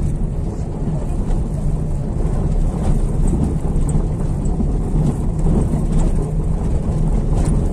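A vehicle driving slowly over a cobblestone street: engine and tyre noise as a steady low rumble, with a few faint ticks.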